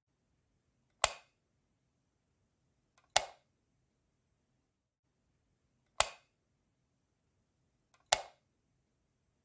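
Four sharp clicks of a light switch, two to three seconds apart, switching a light on and off.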